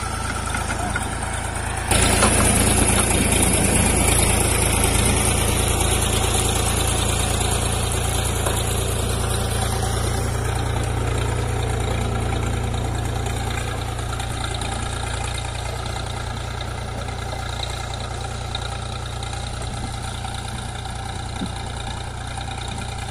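Swaraj 744 FE tractor's three-cylinder diesel engine running steadily while it pulls a sugarcane planter through the field. It grows suddenly louder about two seconds in, then slowly fades as the tractor moves away.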